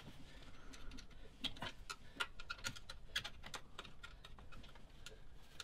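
A run of faint, irregular metallic clicks and ticks from pliers working at a spring hose clip on a small rubber coolant pipe, the clip turning as it is gripped.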